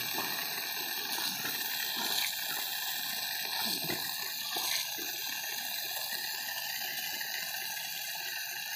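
Water spraying steadily in a thin jet from a hole in a black hose pipe, an even, continuous hiss.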